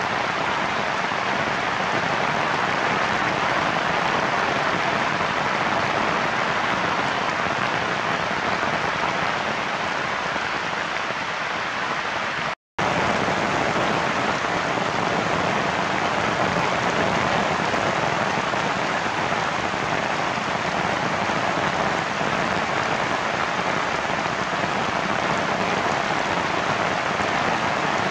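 Heavy rain falling steadily. The sound drops out for a moment about halfway through.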